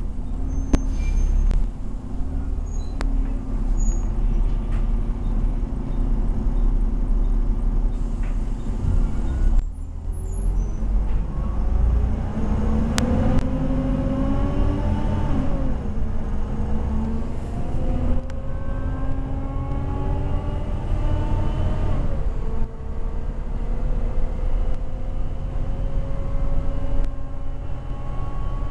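Volvo B7TL double-decker bus heard from on board, its six-cylinder diesel engine and drivetrain really loud: a steady low rumble, then from about a third of the way in a whine that rises in pitch as the bus speeds up. The whine drops back twice, at gear changes, and climbs again each time.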